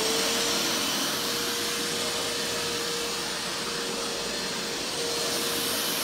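Shop-Vac SVX2 12-gallon, 5.5 peak HP wet/dry vacuum running steadily just after being switched on: a steady motor whine over a rush of air, not horribly loud. The hose is on the blower port, so it is blowing air out rather than sucking.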